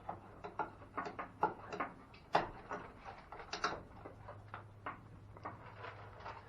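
Irregular light knocks and rattles, several a second, of goats moving about at an opened pen door, over a faint low steady hum.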